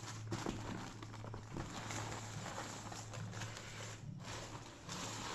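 Plastic courier mailer bag rustling and crinkling as a paperback book is pulled out of it, over a steady low hum.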